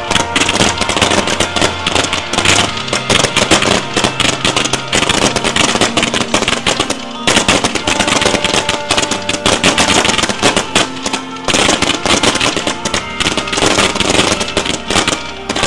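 Fireworks display firing fans of glittering comets in rapid volleys: a dense, continuous run of sharp cracks and bangs, like machine-gun fire, with music underneath.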